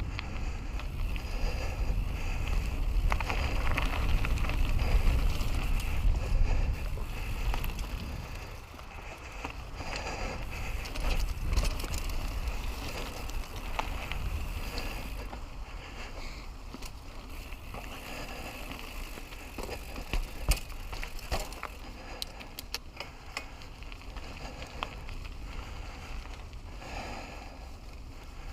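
Mountain bike riding along a rough forest trail, heard from a helmet-mounted action camera: heavy wind rumble on the microphone with tyre noise for about the first eight seconds, then quieter rolling with scattered clicks and rattles from stones and the bike.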